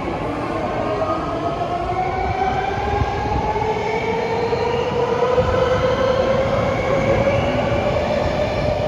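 BART Fleet of the Future train pulling out, its traction motors giving a whine that rises steadily in pitch as it accelerates, over the rumble of the wheels on the rails.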